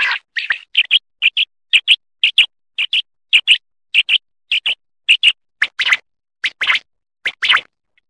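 Common quail (batair) calling: a steady run of short, high paired notes, about two pairs a second, spacing out a little toward the end.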